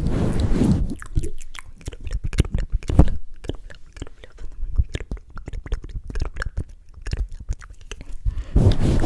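Wet mouth sounds close to the microphone: a rapid series of moist clicks and smacks. Muffled rubbing on the microphone comes before them, stops about a second in, and comes back near the end.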